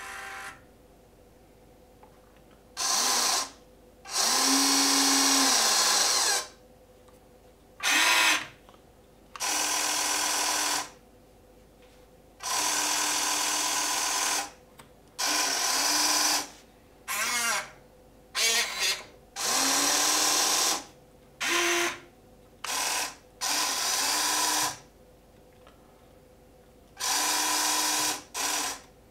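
Electric actuator motors of a 1:14 full-metal RC excavator whirring in repeated short bursts, each lasting under a second to about two seconds, as the boom, arm and breaker attachment are moved from the remote. Each burst starts and stops abruptly.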